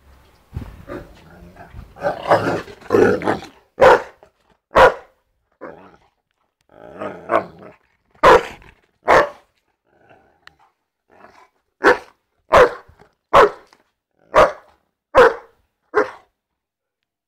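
Young Newfoundland dog growling roughly for a few seconds, then barking in short, deep single barks, about ten in all: two pairs, then a run of six about a second apart. The growls and barks are play, at a toy bone.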